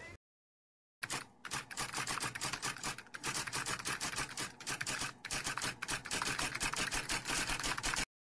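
Typewriter sound effect: a fast, dense run of key clicks that starts about a second in, breaks briefly three times, and cuts off suddenly just before the end.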